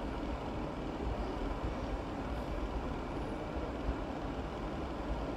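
Steady low mechanical rumble and hiss of room ventilation, such as a kitchen extraction fan, with no clear breaks or strokes.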